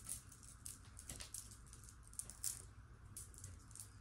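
Faint, scattered clicking and rattling of stone beads: a dyed howlite memory-wire bracelet clacking as it is wound onto a wrist.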